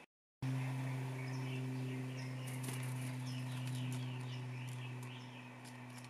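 After a split second of silence, small birds chirp in a run of short rising-and-falling calls and a few higher notes, with some sharp clicks among them. Under them runs a steady low mechanical hum, the loudest sound, which eases off near the end.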